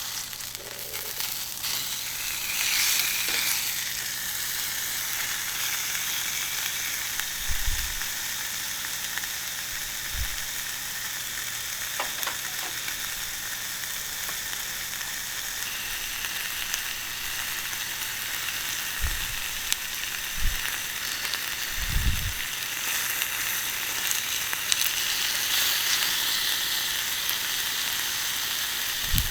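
Beef loin steak sizzling on a hot iron griddle over a wood fire, a steady high sizzle at full heat. A few brief, dull low thumps come in around the middle.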